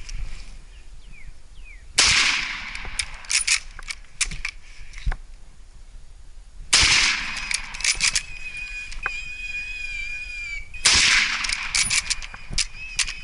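Three loud rifle shots about four seconds apart, each trailing off, with smaller clicks and knocks between them; a thin steady high tone lasts about two seconds between the second and third shot.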